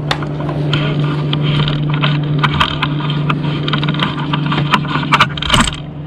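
Pine twigs and branches crackling and snapping in a quick irregular series of sharp cracks, thickest about five seconds in, over a steady low hum.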